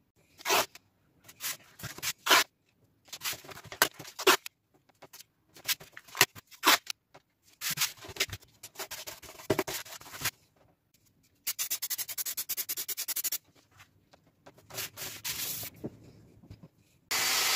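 Hands working blue painter's tape onto plywood: short tearing, rustling and rubbing noises as strips come off the roll and are smoothed down, with a rapid rattle for about two seconds partway through. In the last half-second a Dremel rotary tool starts running for drilling pilot holes.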